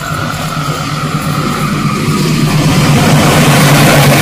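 Diesel locomotive hauling a passenger train, approaching and passing close by. Its engine drone grows steadily louder, and wheel and rail noise builds over the last second or so as the carriages arrive.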